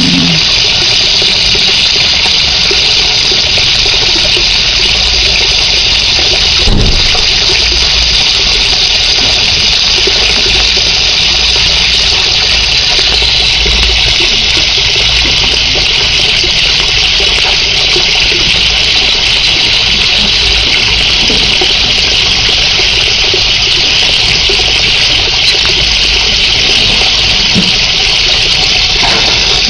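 Steady, loud rush of running water, with a single knock about seven seconds in.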